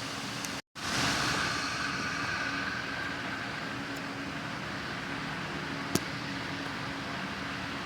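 Steady mechanical hum, like a fan or running motor, with a faint steady tone. It cuts out briefly just under a second in, comes back a little louder for a couple of seconds, and a single sharp click sounds about six seconds in.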